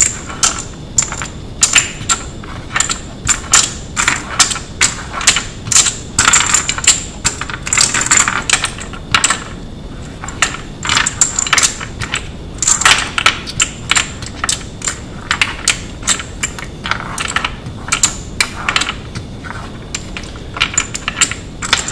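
Brass AR-15 rifle cartridges clinking as they are grabbed by the handful from a wooden tray and set one after another into a wooden speed-loader rail: a fast, irregular run of metallic clicks and clinks.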